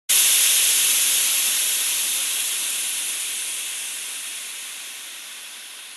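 Steam hissing steadily, starting abruptly and fading slowly away.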